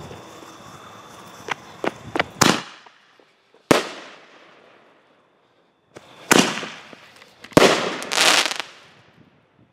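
Consumer artillery-shell fireworks bursting overhead. A hissing crackle with several sharp pops comes in the first couple of seconds, then three loud bangs a second and a half to a few seconds apart. The last bang is followed by a short rush of crackling.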